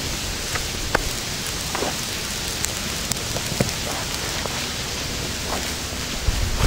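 Tinder bundle burning in open flame on bare ground, crackling sharply now and then over a steady rushing noise.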